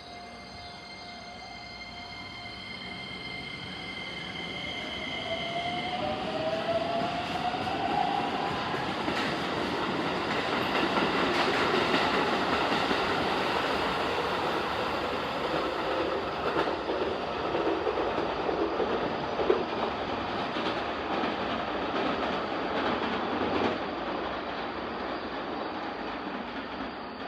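Keikyu electric train pulling out of the station: a rising motor whine as it accelerates, then a steady rumble of wheels on rail with occasional clacks, loudest about midway and easing off near the end.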